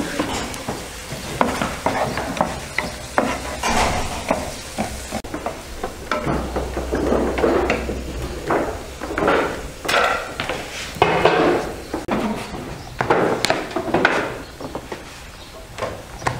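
Chopped green pepper, onion and mushrooms frying in a pan, sizzling, while a wooden spatula stirs them with repeated irregular scrapes against the pan.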